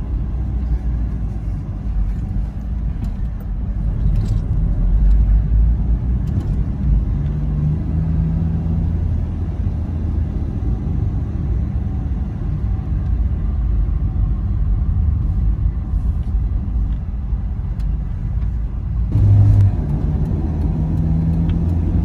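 Steady low rumble of a moving car's engine and tyres on the road, with the noise growing fuller near the end.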